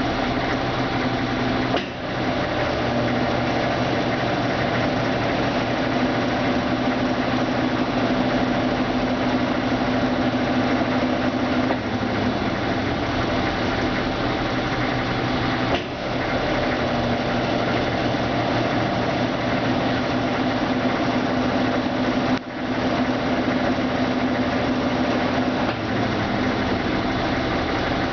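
Brastemp Ative BWL11AR top-load washing machine running through its intermediate spin: a steady motor hum, dipping briefly a few times.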